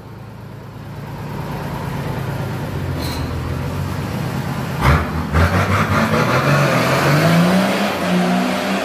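Nissan Patrol Y60 engine, breathing through its newly made stainless-steel exhaust, pulling under load as the truck climbs off-road. The revs rise in the second half, and there is a single thump about five seconds in.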